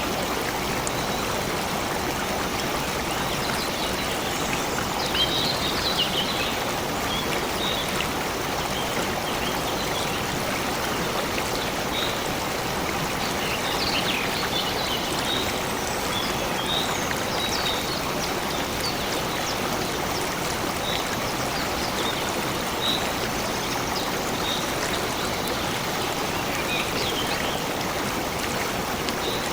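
A stream flowing steadily with a constant rushing and trickling of water. Short, high chirps, typical of small birds, come and go throughout.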